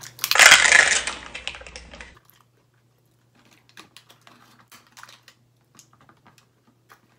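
Plastic sauce packet crinkling and tearing as it is worked open by hand, loudest for the first two seconds, then faint, scattered small crinkles and clicks.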